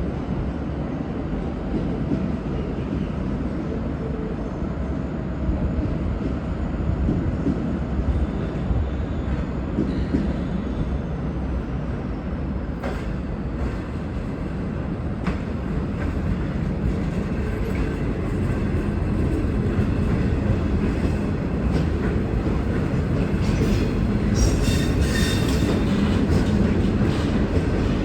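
V/Line N class diesel locomotive, with its EMD V12 two-stroke engine, running steadily as it shunts a rake of passenger carriages. It grows louder over the second half, and wheel squeal and rail clatter come in near the end as the train rolls over the track.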